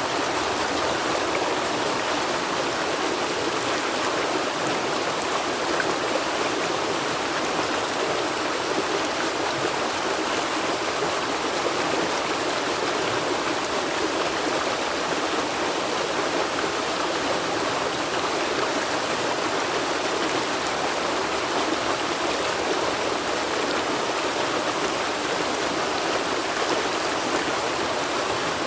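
River water flowing steadily, a continuous even rushing with little deep rumble.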